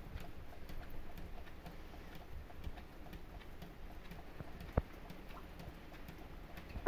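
Light rain: scattered raindrop ticks and patter over a low steady rumble, with one sharper click about five seconds in.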